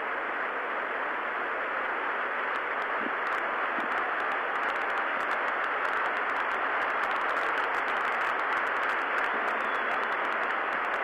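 Large stadium crowd making a steady, even noise that slowly grows a little louder.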